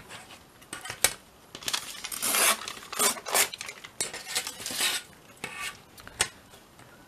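Scrap paper being torn along the edge of a steel ruler in several rasping pulls, with sharp clicks of the metal ruler knocking on the table, the loudest about a second in.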